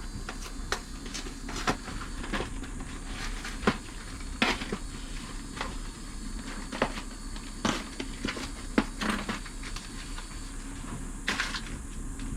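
A string of irregular light clicks and knocks from small things being handled, over a faint steady hum.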